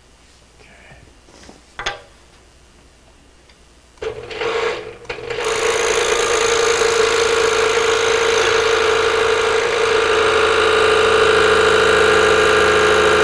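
Electric scroll saw switched on about four seconds in, its reciprocating blade then running at a steady speed with a steady hum. A light knock is heard near two seconds.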